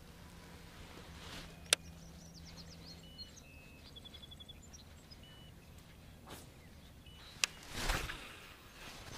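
Quiet open-air ambience with faint bird chirps through the middle, punctuated by two sharp clicks and a short swish near the end.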